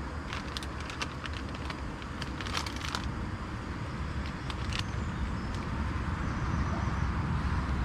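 Steady rumble of road traffic from a nearby dual carriageway, with a run of small crackling clicks over the first three seconds and a few more about five seconds in.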